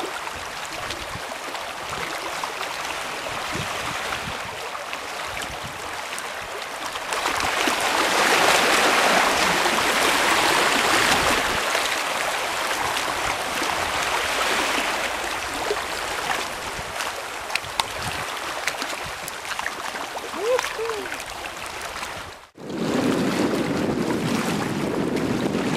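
Sea water washing and lapping with wind on the microphone, loudest in the middle stretch. A short break near the end marks a cut, after which lower, heavier wind rumble and sea noise carry on.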